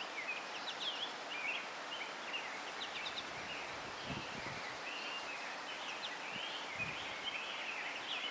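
Several small birds chirping and twittering in quick overlapping calls over a steady outdoor hiss, busier near the end.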